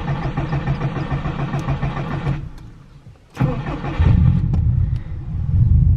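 2007 Subaru WRX's turbocharged flat-four being started: the starter cranks for about two seconds without the engine catching and stops, then cranks again and the engine catches about four seconds in and keeps running. It takes two starts.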